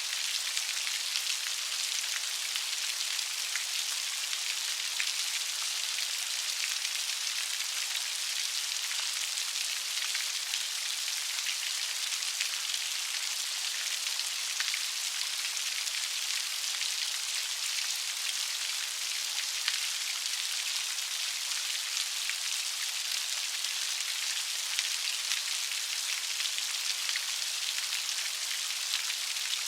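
Steady light rain falling: an even, hissing wash with scattered ticks of single drops.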